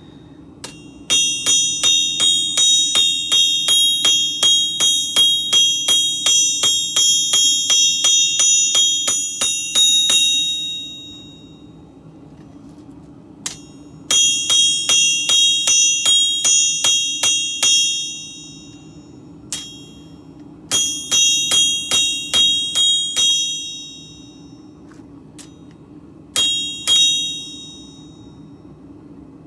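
Hammer striking steel on an anvil in four runs of rapid blows, about three a second, each blow ringing with a high, bell-like tone; the longest run lasts about nine seconds. A steady low hum runs underneath.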